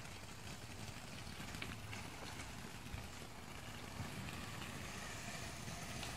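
Ground fountain firework burning with a steady, fairly faint hiss and a few faint pops.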